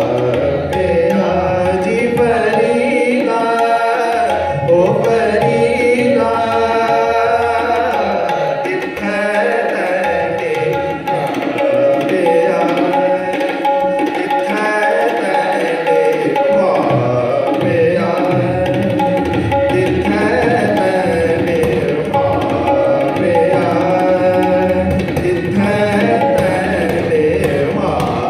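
Live Sikh Gurbani kirtan in raag style: a bowed string melody from taus and tar shehnai glides and sustains over strokes of the jori drum pair.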